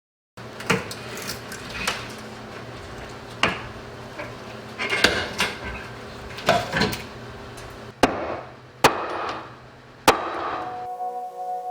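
Irregular knocks and taps of hammering on wood, about a dozen over ten seconds, over a steady low hum, with three sharper, shorter cracks near the end.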